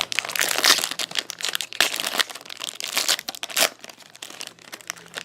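Trading-card box packaging crinkling and crackling in irregular spurts as it is opened and handled, stopping near the end.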